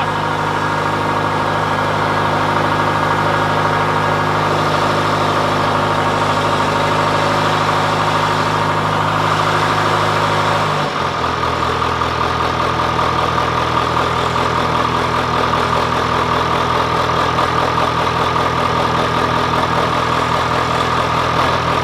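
John Deere 410C backhoe's diesel engine idling steadily, just after a cold winter start following months of sitting. About halfway through, the engine speed drops a little and it settles into a slower idle.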